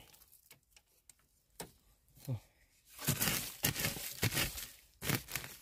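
Dry bamboo leaves and twigs crackling and rustling as someone crawls into a bamboo clump. It starts with a few light snaps, then there is a couple of seconds of dense crackling past the middle and one last short rustle.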